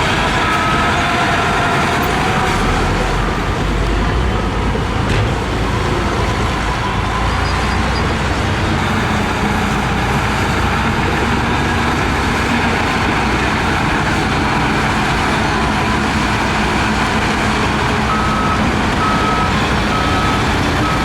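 Heavy earthmoving machinery running loudly and steadily under diesel power, with a low rumble. A reversing alarm beeps about once a second right at the start and again near the end.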